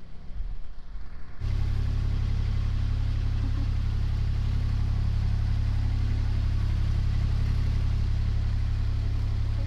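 A narrowboat's diesel engine running at a steady speed, low and even. It gets louder about a second and a half in.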